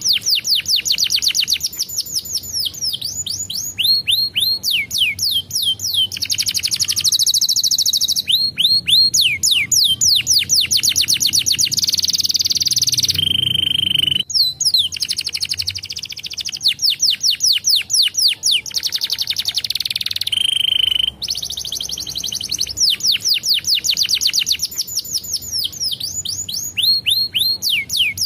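Domestic canary singing a long, continuous song of fast trills made of rapid falling notes. Twice, near the middle, it breaks into a short steady whistle.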